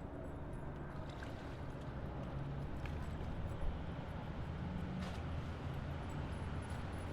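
Highway traffic heard from a distance as a steady low rumble, with a few faint clicks.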